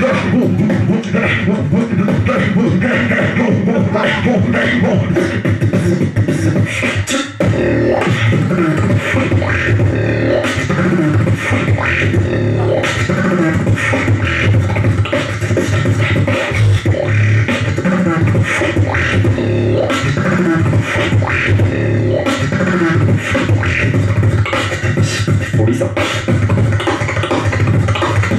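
Human beatboxing performed live into a handheld microphone: a fast, dense run of mouth-made kick, snare and hi-hat sounds over a steady low bass tone, with a brief break about seven seconds in.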